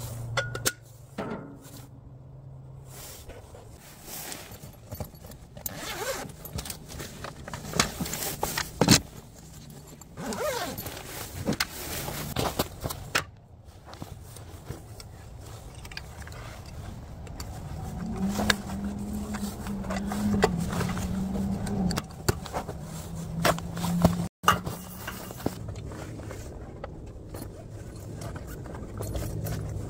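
Camp gear being handled: a string of clicks, knocks and scrapes as a thin metal holder is hooked onto an aluminium folding camp table and gear is moved about in an SUV's cargo area. A low steady hum runs for a few seconds past the middle.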